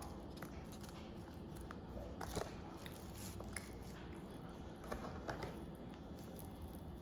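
A person biting and chewing food close to the microphone, with a few crisp crunches about two seconds in and again about five seconds in.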